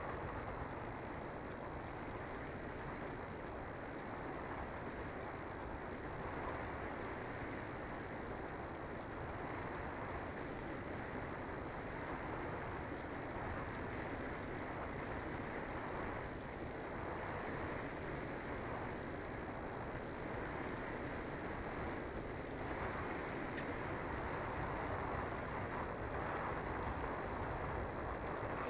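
Steady rush of air over a Bixler II Sport foam RC glider and its onboard camera's microphone, gliding with the electric motor off while it circles in a thermal. The sound is an even, pitchless noise that grows a little louder near the end.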